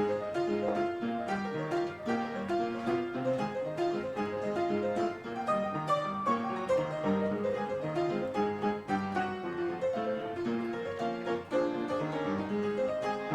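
Background music: a quick run of piano or keyboard notes.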